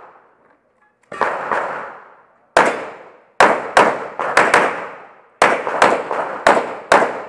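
Rapid pistol shots, about fifteen in under seven seconds, fired in quick groups of two to five. Each sharp crack trails off in a short echo.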